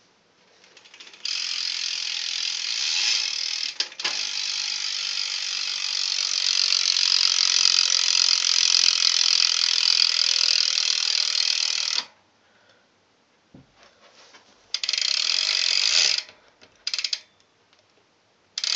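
BMX rear hub freewheeling as the wheel spins, its pawls giving a pretty loud, rapid ratcheting click. It starts about a second in, runs for about eleven seconds with a brief dip, and cuts off suddenly. It comes back for about a second later on and in a few short bursts near the end.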